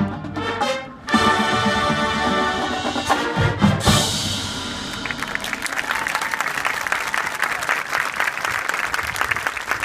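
Brass-heavy band music ending on loud accented chords about four seconds in, followed by audience applause.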